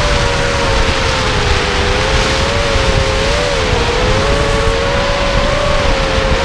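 Mini FPV racing quadcopter's brushless motors and propellers whining in flight, heard from its onboard camera: a steady buzz of two close tones whose pitch wavers up and down with the throttle, over rushing wind on the microphone.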